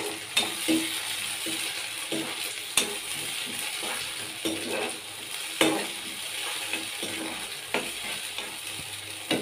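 Onion and tomato paste frying in oil in a kadai, sizzling steadily while a slotted spatula stirs it, with irregular scrapes and knocks of the spatula against the pan.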